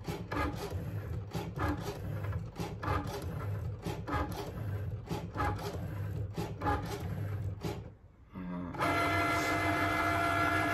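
Cricut Maker cutting machine cutting print-then-cut calibration lines: the blade carriage and rollers move in short, uneven runs of whirring and clicking. After a brief pause near the end comes a steady, higher motor whine lasting about two seconds as the mat feeds out.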